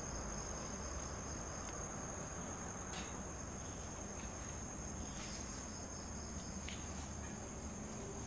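Crickets or similar night insects trilling in one steady, high, unbroken tone, with a few faint ticks now and then.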